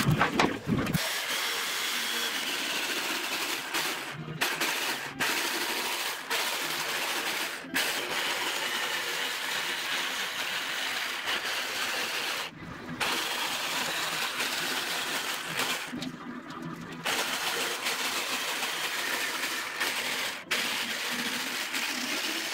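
Corded DeWalt jigsaw cutting through thick, dense ipe hardwood along a curve. It runs at a steady level, with several short breaks.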